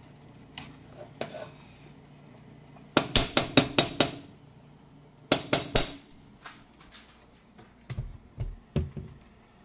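Metal tongs tapping against the rim of a cooking pot: a quick run of about six sharp metallic clicks about three seconds in, four more about two seconds later, then a few dull knocks near the end.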